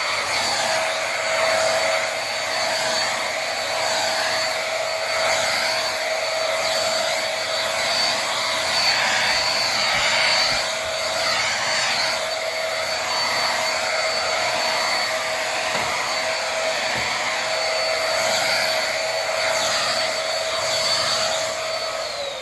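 Corded Nequare A17 stick vacuum, its high-power motor and roller brush head running steadily over a rug with a constant whine. It is switched off near the end, the whine falling as the motor winds down.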